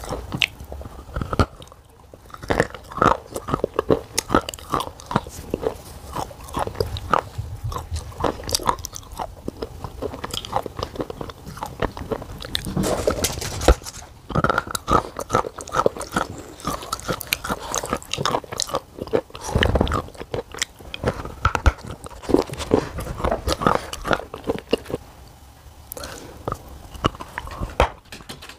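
Biting and chewing a flat disc of black shale clay close to a clip-on microphone: a steady run of irregular crunches and snaps as pieces break off between the teeth and are chewed.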